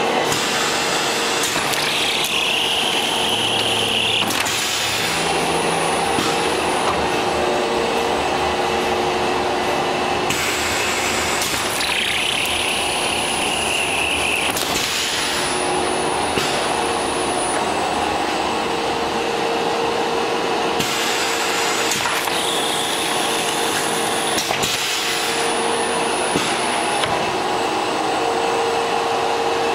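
TAS 3000 series large-format screen-printing press running through its print cycle over and over: a steady machine hum, with a hissing whine that comes and goes three times about ten seconds apart, each ending in a sharp clack.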